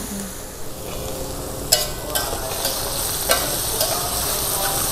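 Mushrooms sizzling as they stir-fry in a steel wok, with a metal spatula scraping through them. The spatula clinks sharply against the wok a few times, most clearly just under two seconds in and again just past three seconds.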